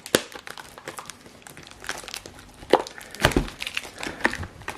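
Crinkly plastic shrink-wrap being pulled and torn off a booster box, with irregular crackling and a few sharper snaps.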